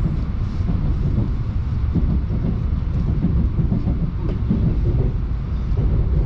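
Moscow Central Circle electric train (Siemens Lastochka) running at speed, heard from inside the carriage as a steady low rumble.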